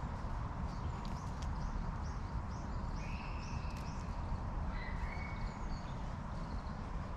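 Wild birds chirping in short calls and whistles over a steady low rumble of wind, with a few faint taps and rustles as a carrion crow probes wet leaves in a shallow puddle.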